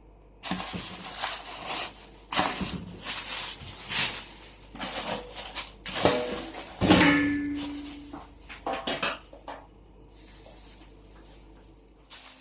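Rustling, crinkling and clattering as a double-layer steamer pot and its packaging are handled during unboxing, with a brief ringing note about seven seconds in. It quietens for the last few seconds.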